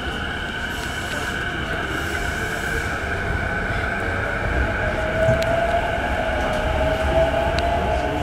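Interior running sound of an E233-1000 series electric train gathering speed. The whine of its Mitsubishi IGBT-VVVF inverter and traction motors rises slowly in pitch over the rumble of wheels on rail, growing gradually louder, with a few light clicks.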